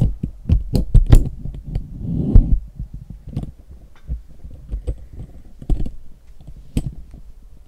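Computer keyboard keys clicking irregularly as the spreadsheet is scrolled, thickest in the first two and a half seconds, with a louder thump about two and a half seconds in.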